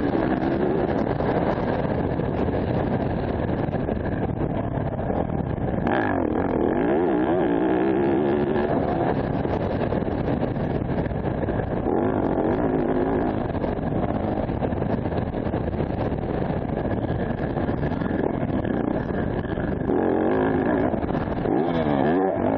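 Dirt bike engine under hard riding, its pitch rising and falling again and again as the rider works the throttle and gears.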